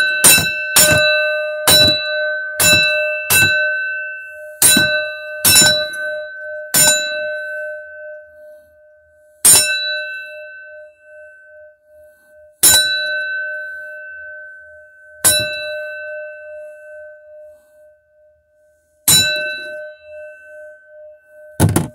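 A rusty metal bell gong is struck with a drywall hammer about a dozen times. The strikes come quickly at first, then a few seconds apart, and each clang leaves a steady ringing tone that slowly fades.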